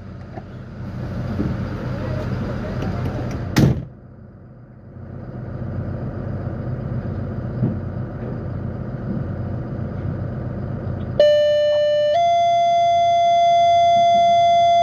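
Fire engine's engine and road noise heard from the cab after the siren has stopped, with a sharp knock about a third of the way in. Near the end a loud, steady horn-like tone starts, steps up slightly in pitch a second later and holds.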